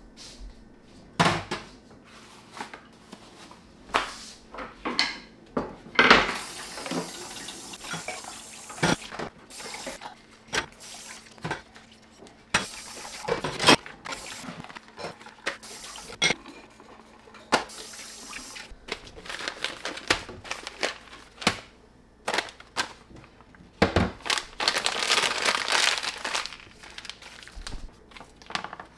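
Dishes being washed by hand in a kitchen sink: plates, glasses and utensils clinking and knocking against each other and the sink. The tap is turned on and off, running in several spurts of a few seconds each.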